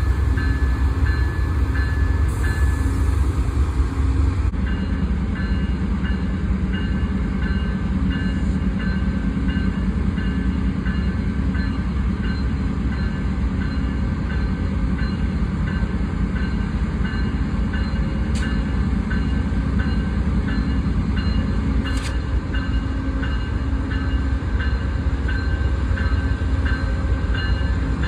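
Amtrak GE Genesis P42DC diesel locomotives running at a standstill with a steady low rumble. A bell-like tone repeats about twice a second over it, and there are two brief clicks about two-thirds of the way through.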